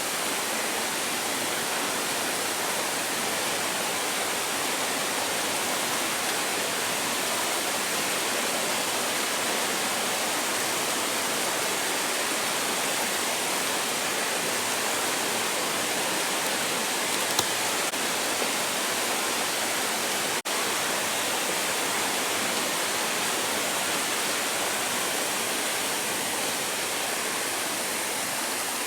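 Nachi Falls, a tall single-drop waterfall, falling water rushing steadily without a break.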